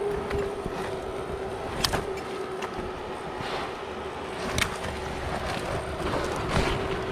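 Leaves and branches rustling as a climber on a rope moves through shrubs on a cliff face, with a couple of sharp clicks, over a steady low hum.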